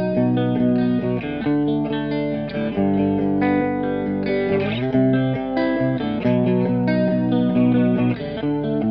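Electric guitar (Squier Starcaster, bridge pickup) playing a riff through a Stoy Sound Choir Boy analog bucket-brigade chorus pedal, lightly overdriven by a Boss Blues Driver. The chorus RATE knob is being turned, changing the speed of the chorus warble.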